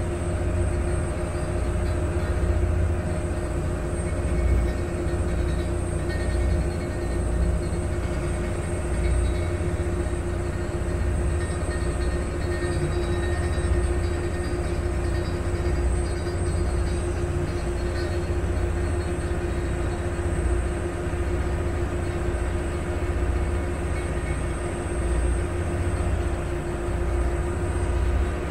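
Passenger ferry's engine running steadily under way: a constant drone with one steady hum, over an unsteady low rumble of wind and water rushing past.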